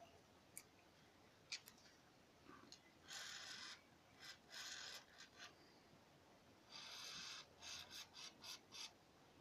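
WD-40 aerosol can spraying penetrating oil onto the brake caliper guide-pin bolts in short hissing squirts, one group of bursts about three seconds in and a second group near the end. Two sharp clicks come before the spraying.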